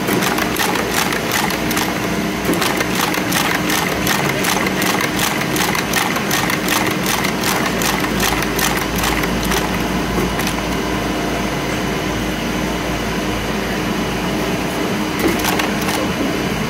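Wire brush-filling machine punching steel wire tufts into a wooden brush block: a rapid, regular metallic clatter of several strokes a second over a steady motor hum. About ten seconds in the clatter stops and the motor keeps running, with a short burst of clicks near the end.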